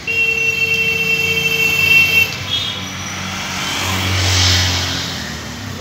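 Road traffic: a steady high-pitched whine for about the first two seconds, then a motor vehicle passes close by, loudest about four and a half seconds in, then fading.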